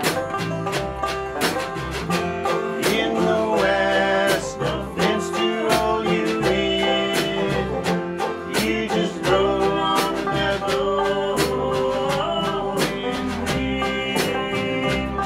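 A country-bluegrass band playing live on banjo, acoustic guitar, upright bass and snare drum, with a steady beat.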